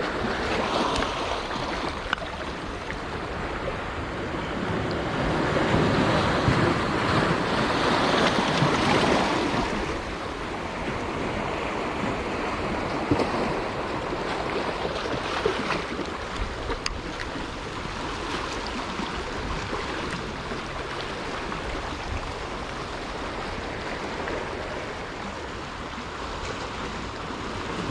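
Choppy sea washing against the shore, with wind on the microphone. The wash swells louder from about five to ten seconds in.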